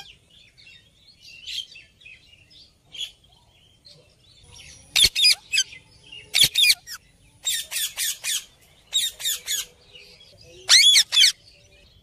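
Indian ringneck parakeets calling: a few faint calls, then from about five seconds in loud, shrill squawks in quick clusters of two to four, repeated every second or so.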